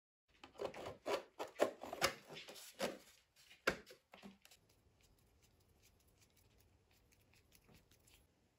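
Hard 3D-printed plastic model parts clicking, knocking and rubbing against each other as they are handled and fitted together by hand. There is a flurry of sharp clicks and knocks for about four seconds, then only faint small clicks.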